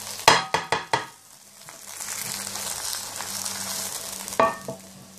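Hot frying pan with a breakfast omelette fresh from under the grill: a quick run of four or five knocks and scrapes as the omelette is slid out of the pan onto a plate, then a soft sizzling hiss from the hot fat, and one short clink near the end.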